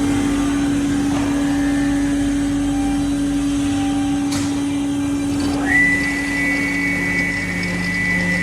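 Cross-cut saw machine's motor running with a steady hum; a sharp click about four seconds in, then a whine rises quickly and holds high as something spins up.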